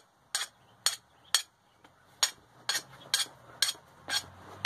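Light metal-on-metal clinks, about nine of them at roughly two a second, with a short pause about two seconds in.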